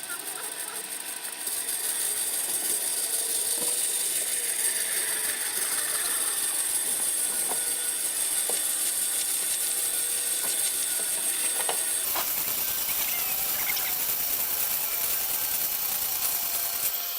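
A woodworking power tool running steadily with a loud high hiss, the sound changing about twelve seconds in.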